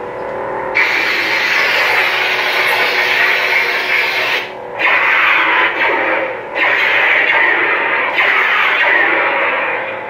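Lightsaber sound effects from the saber's own speaker, driven by a Plecter Labs Prism sound board: a steady electronic hum with loud whooshing swings as the lit blade is moved. The swings swell and break off briefly several times.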